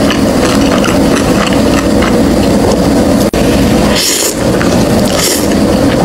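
Instant ramen noodles slurped off a fork, two short hissing slurps about a second apart in the second half, over a loud, steady, noisy rumble.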